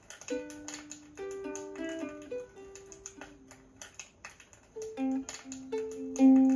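Ukulele played by a beginner practising: slow chords and single plucked notes, with a pause about halfway and louder chords near the end.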